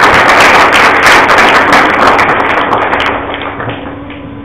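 Audience applauding: dense clapping that dies away about three seconds in.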